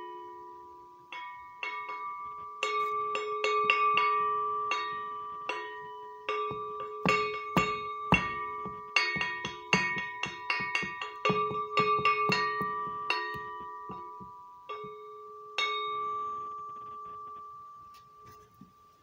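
Steel stovepipe tapped again and again and played as a percussion instrument: dozens of metallic strikes, some in quick runs, each leaving a bell-like ring on the same few steady pitches. The last strike comes shortly after the middle and its ring fades away near the end.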